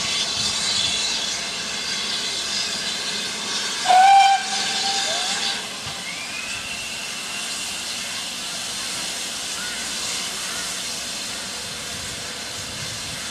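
Steam hissing from double-headed steam locomotives, GWR City class 3717 'City of Truro' and BR 9F 92212. About four seconds in comes one short, loud steam whistle blast, and the hiss drops away about a second and a half later.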